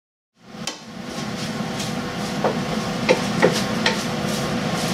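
Wooden spatula stirring shredded chicken and vegetables in a frying pan, knocking against the pan several times, over a steady low hum and hiss.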